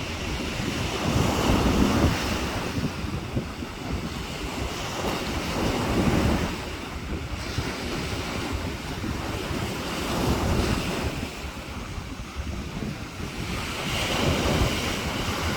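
Sea waves breaking and washing up on a beach, the surf swelling and easing about every four seconds, with wind buffeting the microphone.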